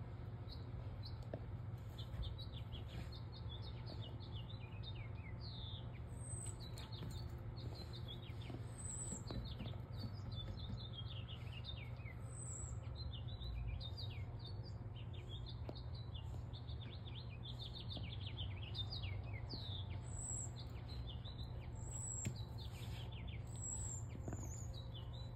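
Songbirds chirping: a steady chatter of many short, quick, falling chirps, with occasional higher notes.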